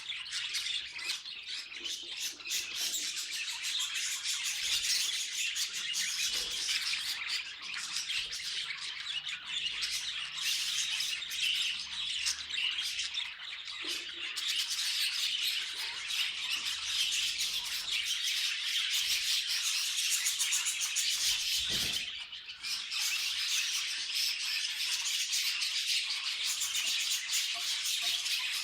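Budgerigars chattering and warbling nonstop in rapid, scratchy squawks and chirps, with a brief break about two-thirds of the way through.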